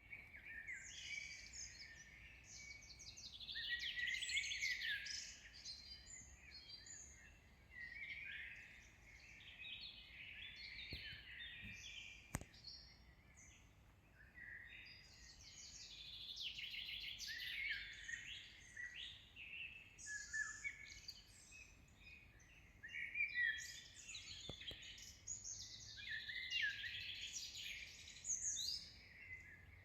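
Several songbirds singing at once, a dense, continuous chorus of overlapping chirps and trills, with two brief clicks.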